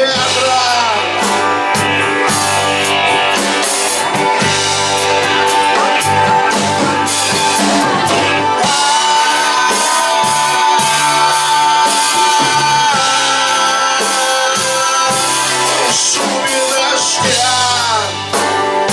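Rock band playing an instrumental passage of a song, with guitar over bass and drum kit, and long held melody notes.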